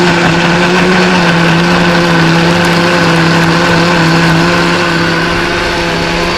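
Countertop electric blender running steadily, puréeing a thick green seasoning mix: a loud, even motor hum with a whine above it.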